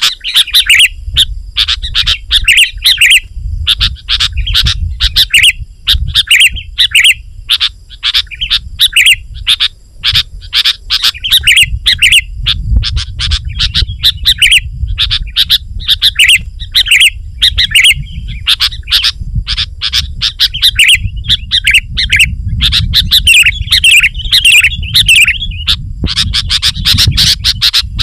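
Sooty-headed bulbul (kutilang) calling busily: quick, tightly packed chirping phrases repeated almost without pause, over a steady low rumble.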